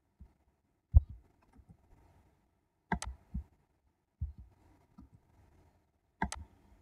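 Computer mouse clicks: about five sharp clicks spread over several seconds, some in quick pairs, the loudest about a second in, with fainter taps between.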